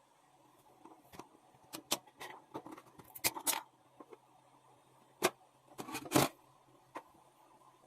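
Irregular clicks, taps and knocks of small hard objects being handled, the loudest knocks about three seconds and six seconds in, over a faint steady hum.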